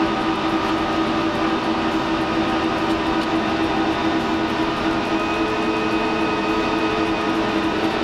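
Server-room fan noise: the cooling fans of racks full of running servers, a steady whir with several steady hums in it.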